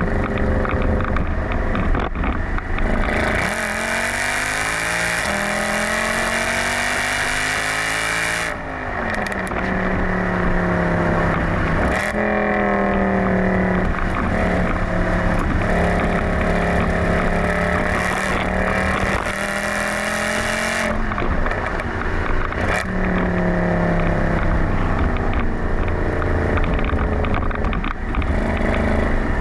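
Mercedes-Benz C63 AMG (W204) 6.2-litre V8 exhaust, on a Stage 2 map with the secondary catalytic converters removed, driven through the gears. The engine note climbs steadily for about five seconds, drops sharply at an upshift, then holds a fairly steady note with a few more abrupt shifts.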